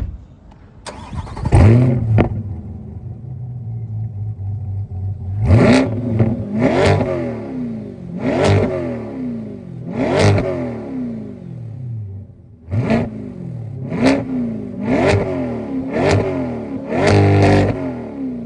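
Chevrolet Corvette C8 Z51's 6.2-litre V8 through a titanium exhaust fires up about a second and a half in and settles into an idle. It is then blipped about nine times, each rev climbing sharply and falling back to idle.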